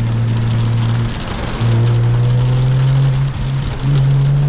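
Single-turbo N54 inline-six of a BMW 335is pulling under throttle, its note rising, with two brief dips (about a second in and again past three seconds) like gear shifts or lifts off the throttle, then pulling on at a higher pitch. Heavy rain hisses on the car throughout.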